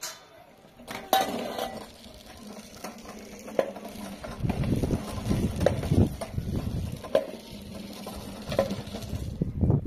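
Hand mixing a flour-and-water batter in a metal bowl, with irregular swishing and several short clinks and knocks of the bowl through the second half. A single sharp clank comes about a second in.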